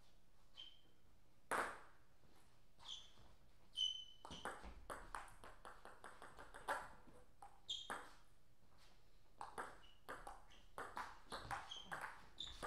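Table tennis ball clicking off rackets and bouncing on the table: a few separate ticks in the first seconds, then a rapid run of sharp clicks through most of the rest as the point is played out.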